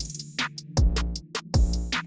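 Background hip-hop music with a drum-machine beat: deep sliding 808 bass kicks and hi-hats, about two kicks a second.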